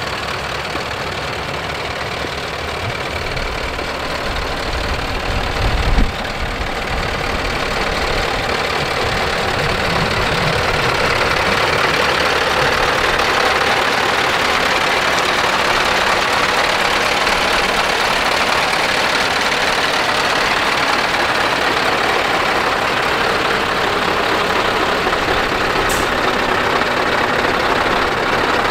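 Scania R560 truck's V8 diesel engine idling steadily, growing louder partway through and then holding level, with a brief low thump about six seconds in.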